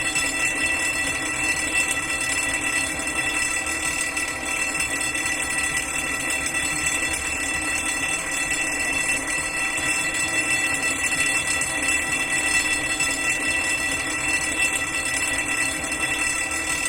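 Fire alarm bell ringing steadily without a break, a continuous high ring.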